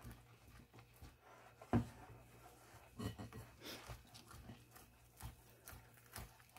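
Small spoon stirring stiff butter-and-powdered-sugar frosting by hand in a mixing bowl: soft, irregular knocks and scrapes against the bowl, the loudest a knock about two seconds in.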